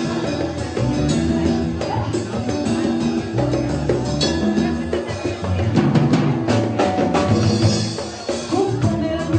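Live band music with steady hand drumming and keyboard.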